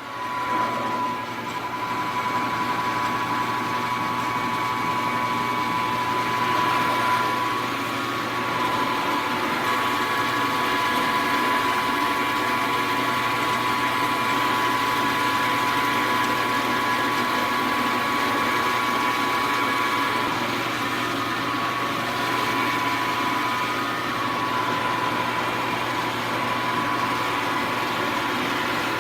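Milling machine running steadily with its spindle at about 1200 RPM while the cutter takes a cut across a part clamped in the vise: an even motor hum with a steady whine that holds its pitch.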